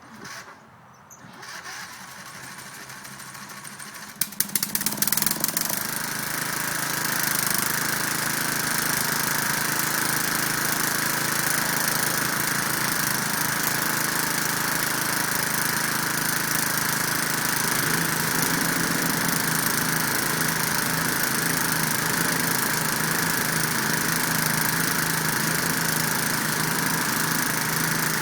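Lawn mower engine starting about four seconds in, then running steadily; a steady low hum joins about 18 seconds in.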